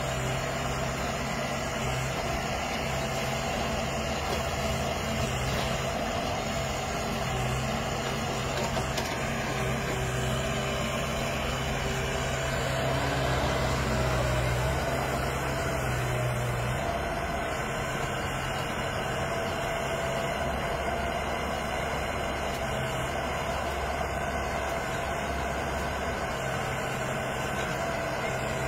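Diesel engine of a wheeled sugarcane grab excavator running steadily while it works, a constant low hum with no pauses.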